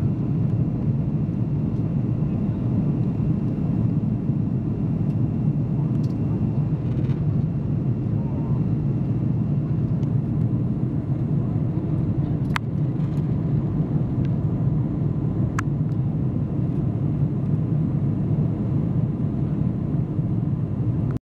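Steady low cabin noise of an airliner in flight, the constant rumble of engines and airflow heard from a window seat. Two brief sharp clicks about three seconds apart a little past the middle.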